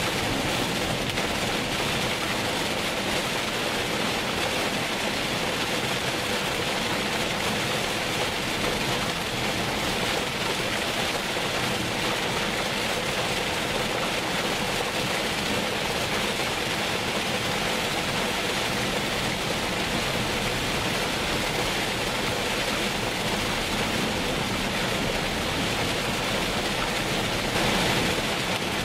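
Heavy rain falling, a steady, even hiss that does not change.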